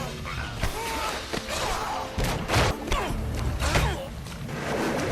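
Film fight-scene soundtrack: a string of punch and kick impacts, thuds and crashes, with short grunts and shouts from the fighters over a background score.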